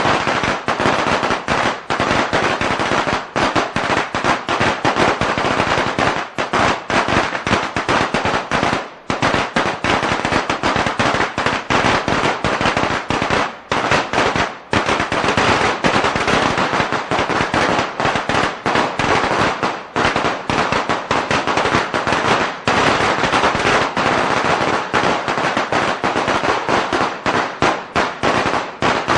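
A string of Chinese firecrackers going off in a rapid, continuous crackle of bangs, with brief lulls about nine and fourteen seconds in.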